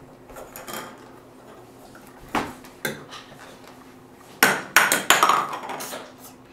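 Sharp knocks and taps on a hardwood floor as a toddler plays: two single knocks, then a loud cluster of several quick knocks near the end.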